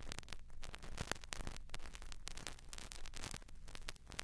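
Vinyl record surface noise at the start of side two: irregular clicks and pops over hiss, with a low steady hum, the stylus running in the groove before the recorded sound begins.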